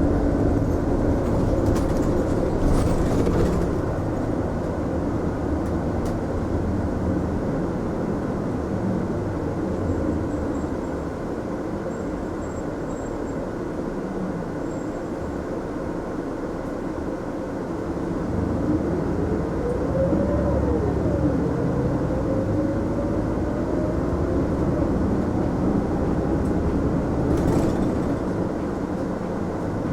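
Mitsubishi Fuso Aerostar city bus heard from inside the cabin while under way: steady engine and road noise. About two-thirds of the way in, the engine note rises as the bus accelerates, drops at a gear change and climbs again. There are a couple of brief knocks, near the start and near the end.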